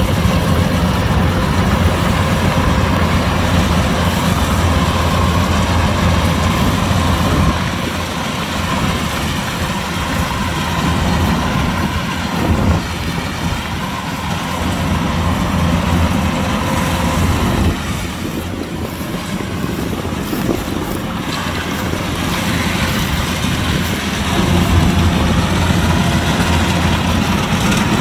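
Kubota DC-105X combine harvester running, a continuous engine drone with a steady whine over it; it eases off twice and grows louder again near the end.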